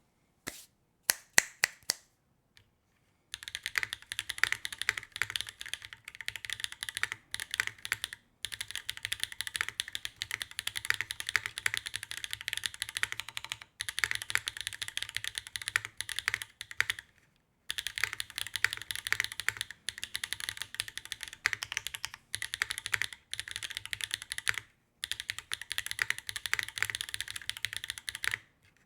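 Mechanical keyboard with factory-lubed HMX Hydra tactile switches on a carbon plate being typed on: a few separate keystrokes at first, then about three seconds in, fast continuous typing in runs with short pauses between them.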